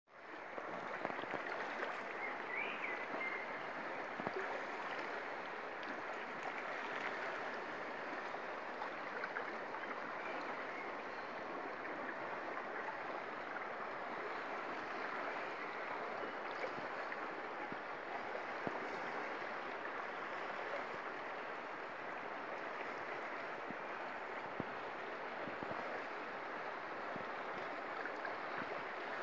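Shallow river flowing steadily over a stony bed.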